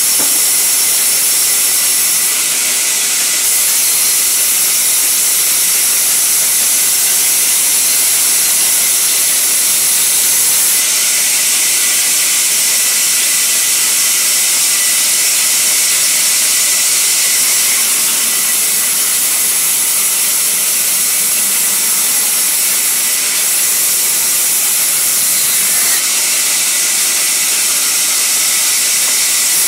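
Large sawmill band saw running and resawing a sal wood plank: a steady, loud hiss of the blade through the hardwood, with a thin high whine over it and no let-up.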